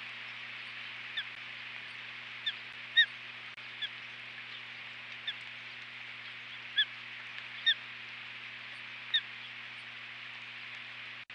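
Osprey chirping: about eight short, sharp, slightly rising chirps spaced irregularly, the loudest about three seconds in. A steady hiss and a low electrical hum run underneath.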